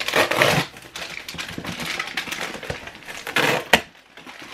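Cardboard shipping box being pulled open by hand: crinkling and scraping of cardboard and packing, with two louder rustling bursts, one at the start and one about three and a half seconds in that ends in a sharp snap.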